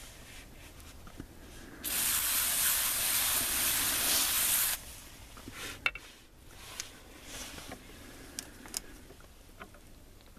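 A sprayer nozzle hisses steadily for about three seconds as liquid is sprayed onto wood. It stops suddenly and is followed by a few faint scattered clicks.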